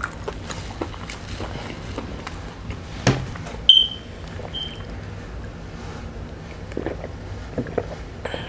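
Drinking from a large plastic water jug: a knock as the jug is handled, then soft swallowing clicks. About three and a half seconds in come two short high beeps, a second apart; the first is the loudest sound.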